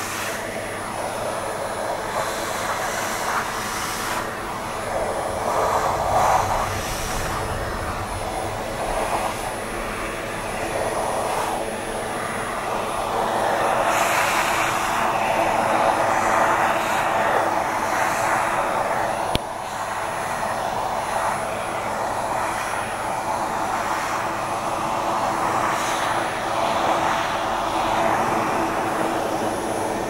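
Vacuum cleaner running steadily with a brush nozzle drawn over a cat's fur; the rushing suction noise swells and fades as the nozzle moves over the coat.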